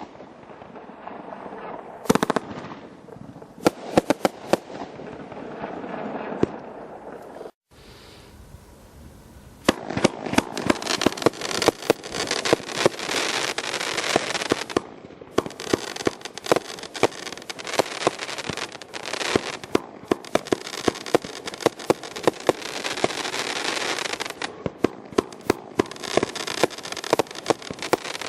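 Consumer firework fan cakes firing volleys of shots over dense, continuous crackle. Near the one-third mark the sound briefly cuts out, then returns as a louder, denser run of crackling.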